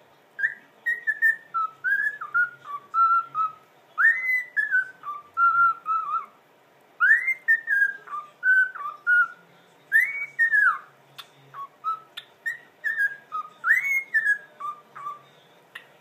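Cockatiel whistling a repeated melody: clear whistled notes in short phrases, each phrase opening with a loud rising-and-falling swoop and then stepping down through shorter notes, repeating about every three seconds.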